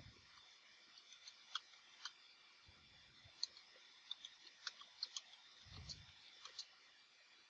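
Faint computer keyboard keystrokes: an irregular run of light clicks, bunching together in the middle, with a few soft low thuds underneath.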